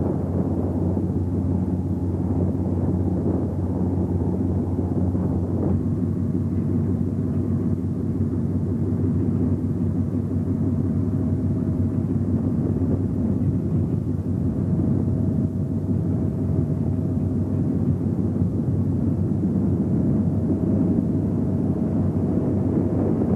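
Steady low drone of a railway ferry's engines and exhaust funnels, mixed with wind on the microphone. A faint higher whine comes and goes several times from about six seconds in.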